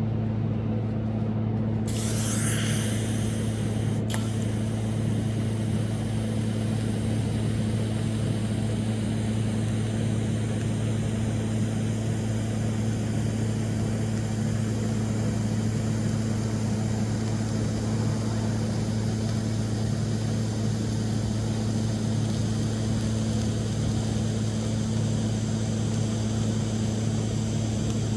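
TIG welder running with a steady electrical hum; about two seconds in the arc strikes and a steady high hiss of the argon arc holds until near the end, fusing exhaust pipe without filler rod. There is a single sharp click shortly after the arc starts.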